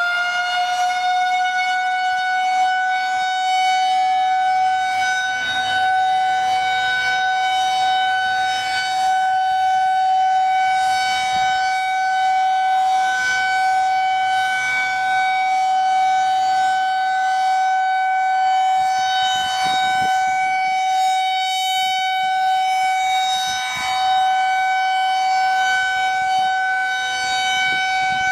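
Federal Signal 2001-SRN electromechanical outdoor warning siren sounding during a test. It is wound up to full speed and holds one steady, loud, high tone with strong overtones.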